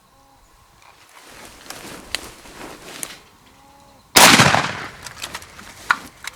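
A single shotgun shot about four seconds in, sudden and loud, dying away over about a second, after a couple of seconds of rustling as the gun is brought up. It is the hunter's first shot at doves, a miss.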